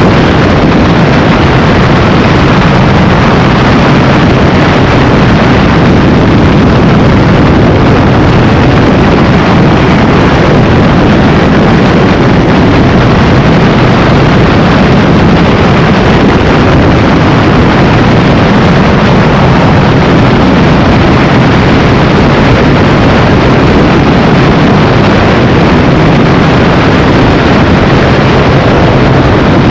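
Motorcycle held flat out at high speed, its engine note buried in steady, loud wind noise on the microphone.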